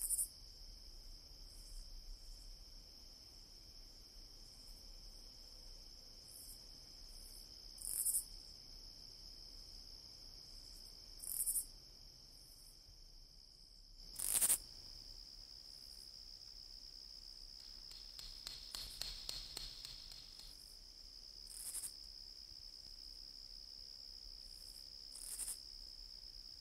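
Cricket ambience: a steady, high-pitched cricket trill with louder short high chirps every few seconds. About halfway through there is a sharper hit, followed shortly by a quick run of ticks.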